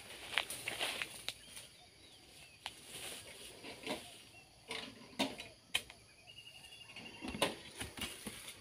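Footsteps rustling and crackling through grass and dry palm fronds, irregular and uneven, with a few faint bird chirps.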